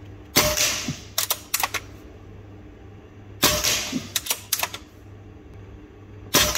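Diana Mauser K98 pre-charged pneumatic air rifle fired three times, about three seconds apart, each shot a sharp crack with a short ring. Between shots come a few quick clicks as the bolt is cycled to load the next pellet.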